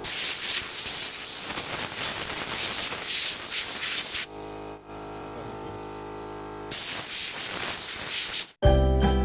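Electric arc of a Lichtenberg fractal burner sizzling through the wood as the burn pattern spreads, a steady hiss. It breaks off for about two seconds midway, leaving only a steady electrical hum, then resumes. Jingling music comes in just before the end.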